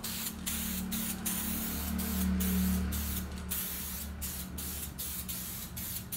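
Aerosol spray-paint can spraying in a series of short hissing bursts, each broken off briefly as the nozzle is released, with a low hum underneath.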